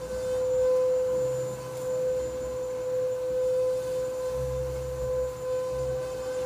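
A steady, unchanging high-pitched tone with faint overtones, like an electronic whine, running without a break; low rumbles come and go beneath it.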